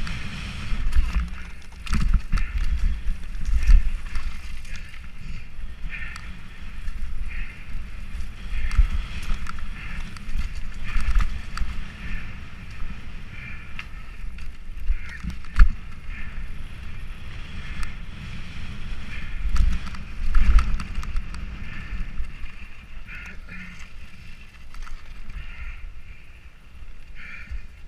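Mountain bike riding down a dirt and gravel trail, heard from a camera mounted on the rider or bike: wind rumbling on the microphone and the bike rattling and jolting over bumps, with a sharp knock about halfway through.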